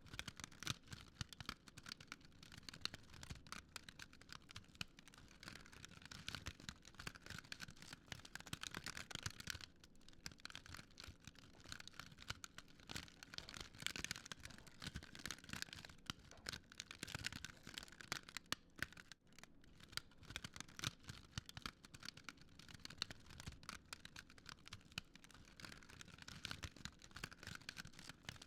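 Wood fire crackling steadily and quietly, with a dense run of small pops and snaps over a soft hiss.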